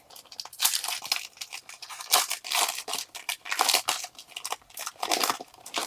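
Foil booster-pack wrapper being torn open and crinkled by hand: a run of irregular, crisp rustles and crackles.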